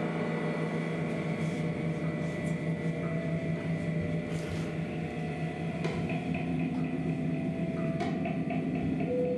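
Large gong ringing in a sustained drone of many steady overtones, played with felt mallets. A faint rapidly pulsing high shimmer joins about six seconds in, and a new tone comes in near the end.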